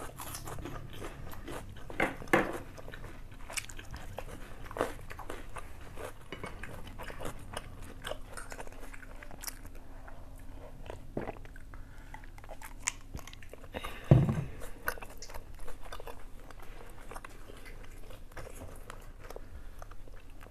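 Close-up eating sounds of two people chewing and biting food, mostly noodles and chicken, with many small clicks and smacks. One louder low thud comes about fourteen seconds in.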